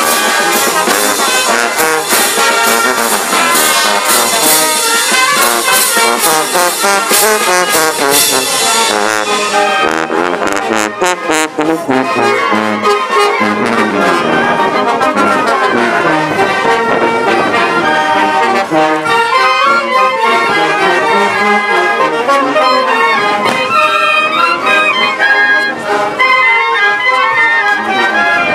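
A village brass band of trombones, trumpets and sousaphone plays a lively tune while marching. A bright high clatter in the first third drops away about ten seconds in, and the brass carries on.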